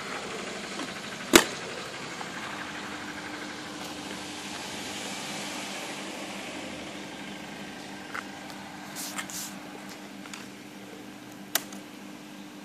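A sharp snap about a second in, from the scooter's plastic front storage-compartment lid being shut, followed later by a few lighter clicks of handling over a faint steady hum.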